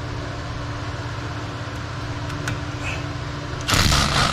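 A steady low mechanical hum, then near the end a loud burst of about half a second from a power tool triggered on a 14 mm caliper bolt.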